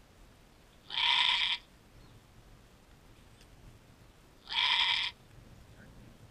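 Doe goat in labour bleating twice, each cry about half a second long and a few seconds apart, as she strains to deliver a kid.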